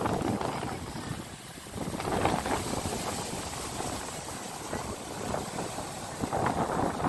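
Sea surf rushing and breaking on the beach, a steady roar of water that swells about two seconds in and again near the end.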